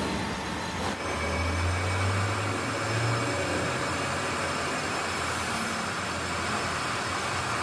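A workshop machine running steadily, a continuous mechanical noise with a low hum and faint steady whine, shifting slightly about a second in.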